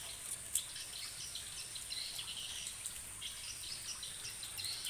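Outdoor ambience: a steady high insect trill and scattered bird chirps, with one sharp click about half a second in.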